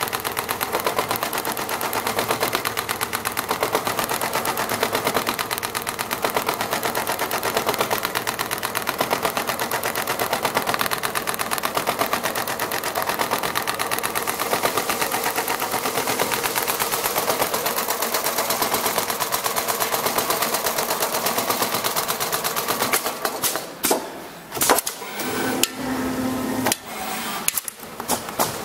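Richpeace CNC pattern sewing machine stitching a quilted pattern into leather seat material, its needle running in a fast, even rhythm. About 23 seconds in, the sound breaks up into brief stops and irregular strokes.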